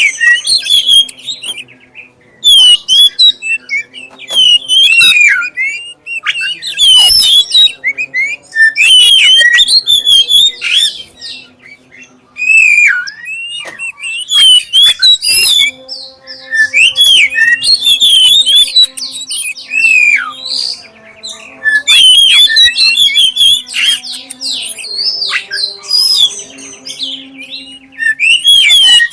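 Black-breasted oriental magpie-robin (kacer dada hitam) singing loud, clear whistled phrases of gliding, rising and falling notes mixed with rapid chattering. The song comes in bursts broken by short pauses.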